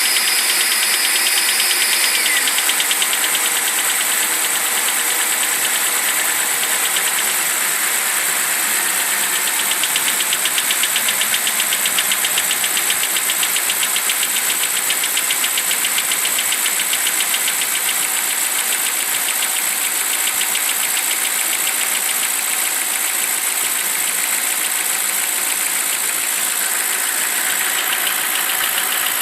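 BMW 745i (E65) N62 4.4-litre V8 idling after a cold start, with a fast, even clacking/knocking from the engine. The owner suspects a worn timing-chain tensioner.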